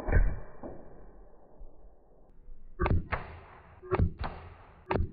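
Shots from a Macavity Arms MA2 .30-calibre PCP air rifle into a ballistic gel block. There is a loud thump at the start, then three quick pairs of sharp cracks about a second apart, each pair a shot followed by its impact.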